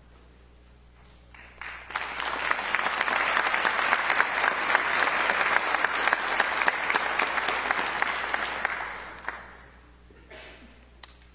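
Audience clapping in a concert hall. It starts about one and a half seconds in, holds for several seconds, then dies away.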